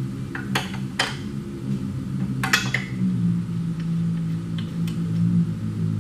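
Metal engine parts clinking as they are handled on the bench: a few sharp clinks around half a second and one second in, and a quick cluster about two and a half seconds in, over a steady low hum.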